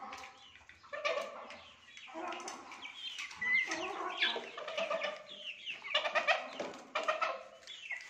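Domestic chickens clucking, short calls coming one after another with a few higher squeaky notes mixed in.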